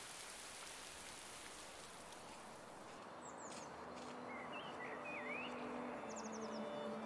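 Rain falling on water for about three seconds, then birds chirping and whistling in short gliding calls with a quick falling trill. Soft, steady music tones come in faintly near the end.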